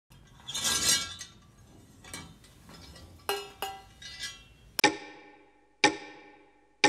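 A brief rustle, light tapping and two small clinks, then three sharp strikes about a second apart on a small ringing object, each ringing on with a clear tone and fading slowly.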